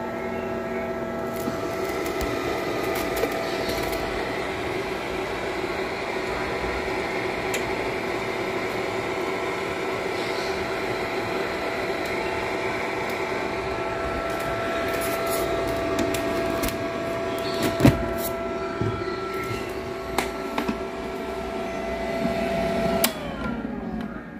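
Egg incubator's fan motor running with a steady hum made of several fixed tones, with a few sharp clicks of handling around it. Near the end the hum stops, one tone falling in pitch as the motor winds down.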